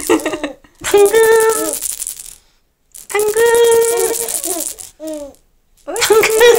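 An adult voice calls out a long, sing-song "당근" ("carrot") twice, each held for over a second, to make a baby laugh. Short rising-and-falling vocal sounds come between the calls.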